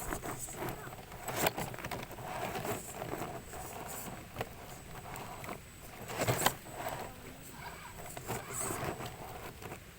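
Radio-controlled off-road toy car running, with irregular clatter and knocks. The loudest knocks come about one and a half seconds in and again around six and a half seconds.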